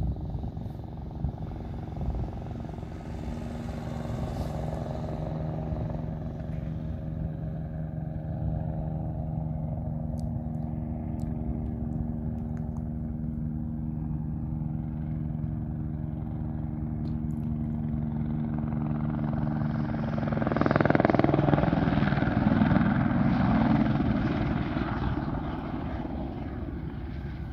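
AS350 Écureuil helicopter in flight: a steady hum with several held tones, which grows louder and rougher for a few seconds about three-quarters of the way in as the helicopter comes closer, then eases off.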